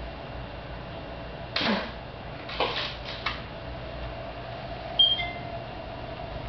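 A cat moving about on a coffee table: a swish, a couple of light rustles and a click, then a sharp tap with a brief metallic ring about five seconds in, over a steady hum.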